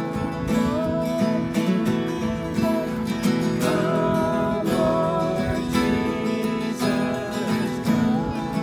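Acoustic guitars strumming a worship song, with a small group of voices singing along.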